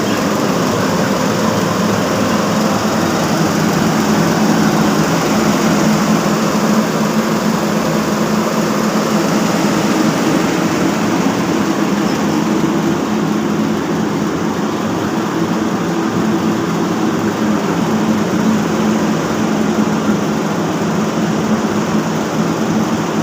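Steady mechanical hum of a running motor, an even low drone over a noisy rush that does not change.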